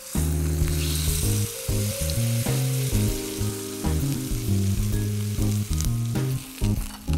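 Pancake batter sizzling as it is poured into a hot, oiled cast-iron skillet, with a steady frying hiss, under background music.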